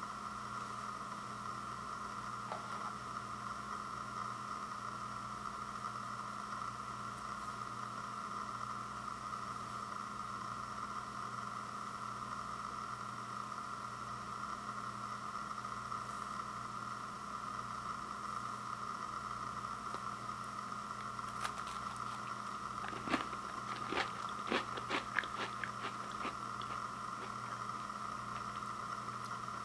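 A thin, crisp chocolate sandwich cookie (Oreo Thins) being bitten and chewed: a run of sharp crunches over several seconds near the end. A steady electrical hum runs underneath throughout.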